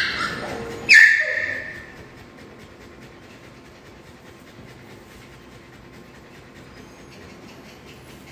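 Labrador whimpering, with one loud, high whine about a second in, then only faint background sound. It is a frightened dog's distress cry as she is held on her back for an ultrasound scan.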